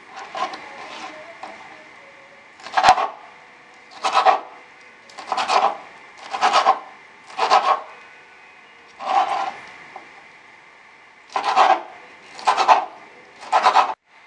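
Kitchen knife chopping cooked shrimp into small pieces on a cutting board: about a dozen short, scraping chops roughly once a second, with one sharper click about three seconds in.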